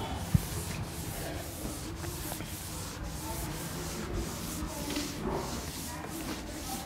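A whiteboard eraser rubbed back and forth over a whiteboard in quick repeated wiping strokes, with a single sharp knock about a third of a second in.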